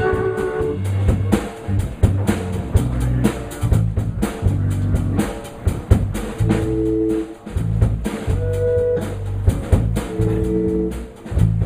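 Live band playing an instrumental passage with no singing: a drum kit keeps a steady beat under bass and electric guitar.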